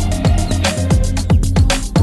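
Background electronic music with a steady beat and falling bass notes.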